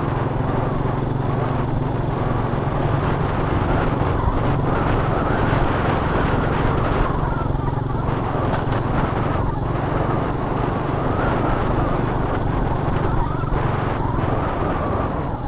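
Honda Astrea Star underbone motorcycle's small four-stroke single-cylinder engine running steadily at cruising speed, heard from on the bike itself.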